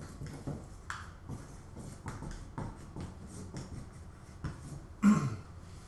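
Dry-erase marker writing on a whiteboard: a run of short, uneven strokes. About five seconds in there is a brief vocal sound.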